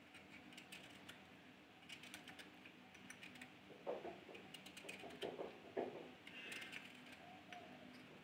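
Kitchen knife peeling a raw green mango: faint, irregular scrapes and clicks as the blade shaves through the firm skin, with strips of peel dropping onto the plate below.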